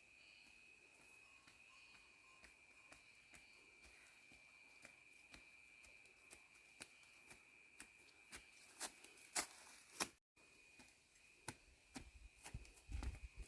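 Faint scattered clicks and taps that come more often and louder in the second half, over a steady high-pitched tone.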